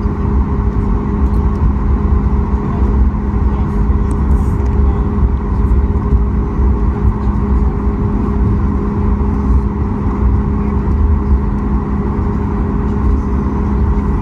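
Cabin sound of a Boeing 737 MAX 8 taxiing: its CFM LEAP-1B engines at low taxi power give a steady hum over a low rumble, heard from a seat beside the engine.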